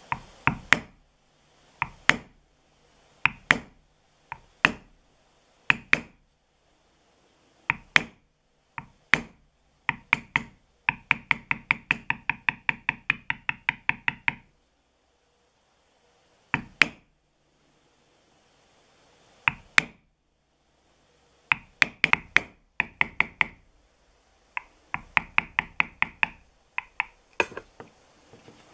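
Mallet striking a small metal leather-tooling backgrounder stamp on leather laid over a marble slab: sharp knocks, single blows and pairs with pauses between, and two fast runs of about five blows a second, one a little before halfway and one near the end.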